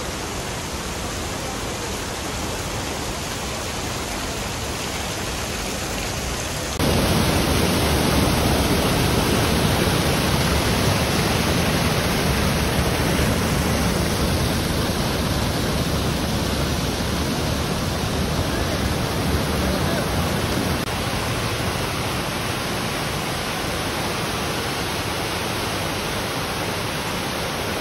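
Steady rush of falling water: a small cascade running down a rocky hillside, then, from about seven seconds in, the louder, fuller rush of a waterfall pouring through a stone dam spillway.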